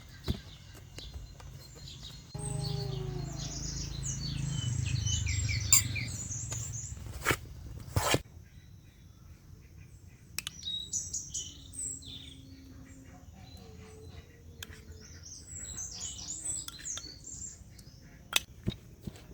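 Small birds chirping in short, quick runs of notes, with a few sharp knocks. A low rumble comes in a couple of seconds in and lasts a few seconds.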